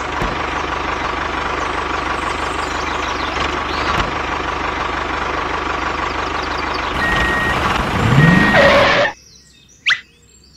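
A vehicle's motor running steadily with a thin steady whine. Near the end come two short beeps and a rising note, then the sound cuts off suddenly and two short whooshes follow.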